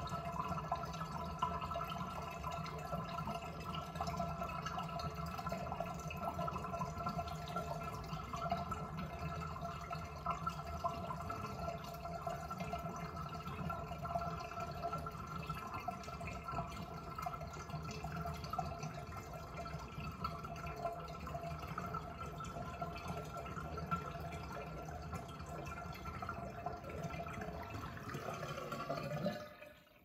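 Bathtub draining: water running steadily down through the open pop-up drain. The sound drops away sharply about a second before the end.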